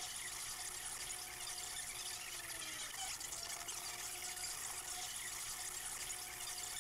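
Hewescraft 180 River Runner jet boat under way, powered by a 250 hp BRP Rotax jet: a steady rush of water and wind noise, with a faint engine whine that dips slightly in pitch every few seconds.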